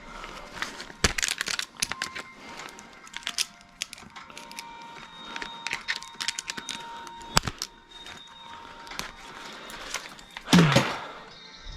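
Metal hand tool clicking and clinking irregularly on a car battery terminal's 10 mm bolt, with one louder scrape and knock near the end.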